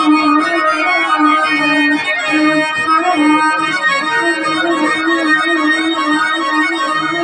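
Harmonium playing a melody of held, reedy notes that step from one pitch to the next, as accompaniment to a village stage drama.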